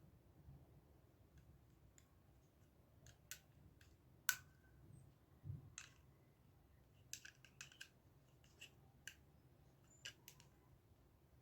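Faint, scattered clicks and taps of small plastic parts being handled and fitted back into a mini wireless speaker's casing during reassembly, about a dozen at irregular intervals, the loudest about four seconds in.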